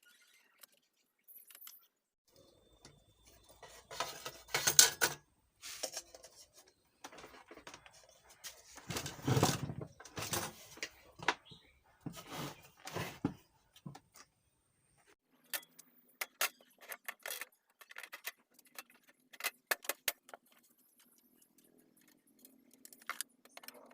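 Metal parts of a power amplifier being handled and fitted back together: scattered clinks, taps and handling knocks, with a couple of louder bumps in the first half and a run of light, sharp clicks later on.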